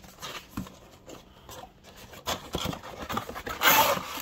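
Cardboard action-figure box being handled and opened: scattered light taps and scrapes of cardboard, then a louder rasping scrape about three and a half seconds in as a flap of the box is worked open.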